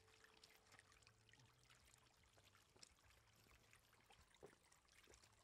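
Faint trickle of shallow runoff water with scattered small splashes and clicks, the sharpest about four and a half seconds in, as catfish flop in the water and are gathered into a plastic basket.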